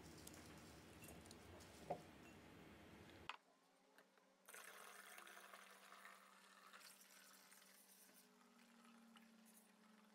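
Faint sound of sugar poured through a funnel into a large plastic bottle, then cooled beer wort poured from a steel pot through the funnel into the bottle, the liquid trickling in as a faint hiss that slowly tapers.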